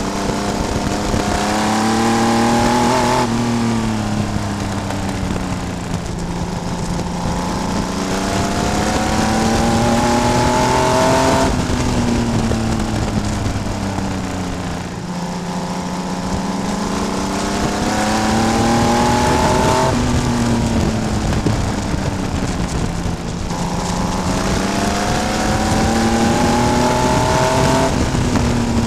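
Vintage race car engine running at racing speed, heard on board. Its pitch climbs steadily as the car accelerates down each straight, then drops sharply as the throttle is lifted for the turns, four times over the laps.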